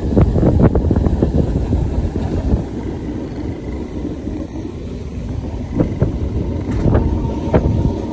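Train running along the track heard from inside a carriage: a heavy low rumble with rapid clattering of wheels over rail joints or points for the first couple of seconds, then a quieter rumble with a few separate clicks near the end.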